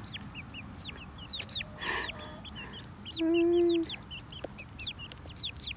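Young chickens peeping: many short, high-pitched chirps that fall in pitch, scattered throughout. About three seconds in there is one longer, steady, lower-pitched sound, the loudest thing heard.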